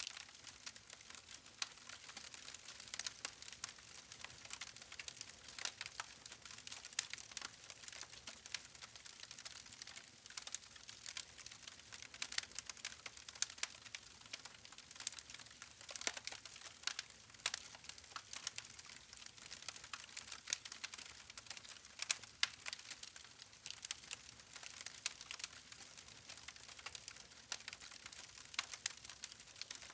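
Wood fire crackling: irregular sharp pops and snaps over a steady hiss of burning logs.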